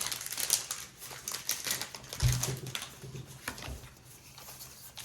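Trading cards being handled and flipped through: a quick run of light clicks and snaps of card against card, thinning out toward the end, with one dull thump about two seconds in.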